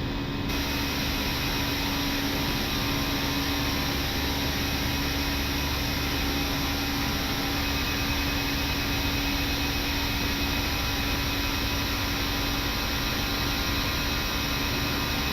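Steady flight-deck noise of an Airbus A319 climbing out after takeoff: an even rush of airflow and engine sound with a constant low hum underneath.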